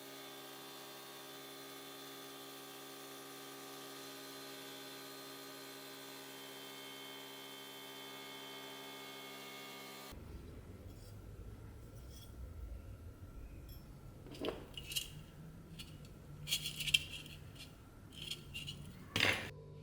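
A steady hum of even tones for about ten seconds, then handling noise: hard metal objects scraping and clinking, with several sharp clinks in the last few seconds.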